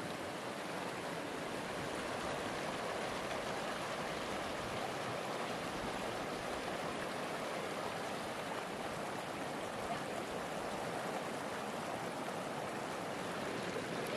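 Steady rushing of flowing water, an even noise with no breaks or distinct events.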